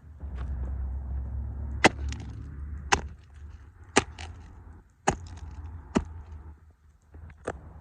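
Plastic toy cars cracking and snapping under combat boots: a series of sharp cracks about once a second, over low shuffling rumble.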